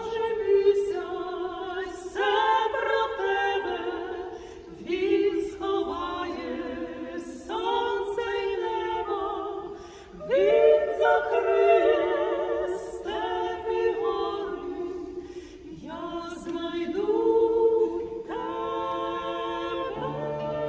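Three women singing together in harmony, with vibrato on long held notes, in phrases of a few seconds with short breaks between them.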